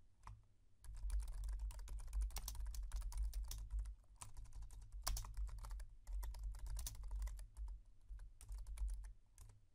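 Typing on a computer keyboard: a quick, uneven run of keystrokes starting about a second in, with a short pause about four seconds in, each stroke carrying a dull low thump.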